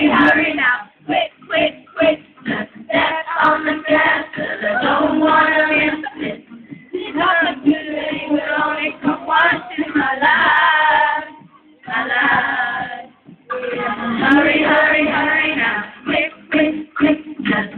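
Female singer singing a pop song into a microphone over amplified music, with short clipped phrases and two brief drops in the sound about twelve and thirteen seconds in.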